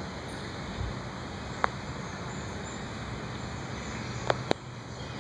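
Steady background hiss of open-air ambience, broken by three short, sharp clicks: one about a second and a half in and two close together near the end.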